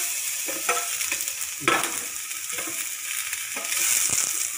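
Round slices of bitter gourd sizzling as they fry in hot oil in a pan, a steady hiss, with a few sharp clinks of a metal spoon and steel plate; the loudest comes about a second and a half in.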